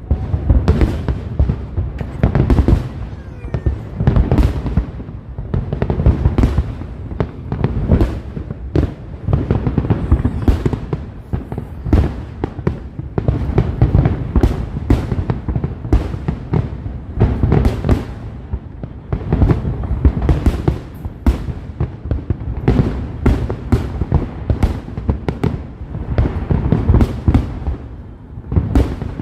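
Fireworks display in full barrage: many sharp bangs and crackles in quick succession, several a second, over a continuous low rumble of booms.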